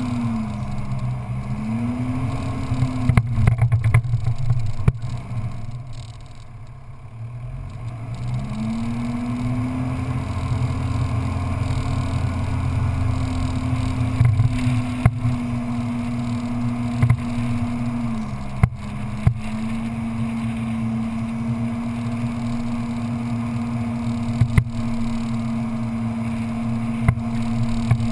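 Engine of an open off-road vehicle running as it drives over sand. Its pitch falls and climbs again in the first few seconds, then it eases off and goes quieter for a couple of seconds before pulling back up to a steady run. There is a brief dip about two-thirds through, and a few sharp knocks are scattered through the run.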